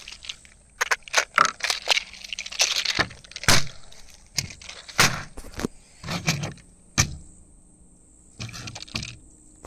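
Handling noise: irregular clicks, taps and rustles as .22 cartridges and their clear plastic box are picked up and set down on a plastic table, with a lull about seven seconds in.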